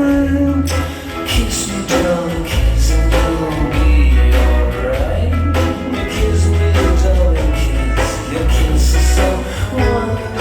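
Fireworks-show soundtrack music: a song with singing over a heavy, pulsing bass line.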